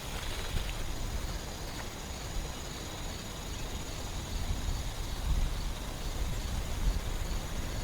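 Forest ambience: insects trilling steadily and high over a low, uneven rumble that grows stronger near the end.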